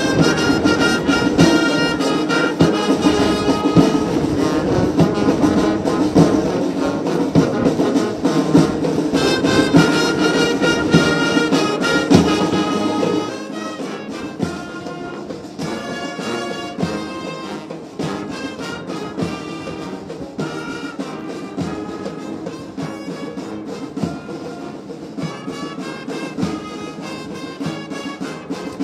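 Brass band music with trumpets and trombones, as played by a military band at a guard-of-honour inspection. It drops in level about 13 seconds in and carries on more softly.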